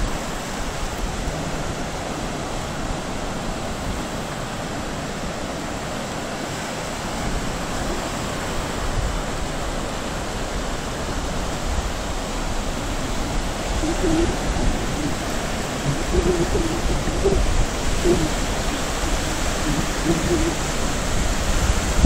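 Ocean surf washing over a rocky shoreline: a steady rush of waves that grows a little louder in the second half.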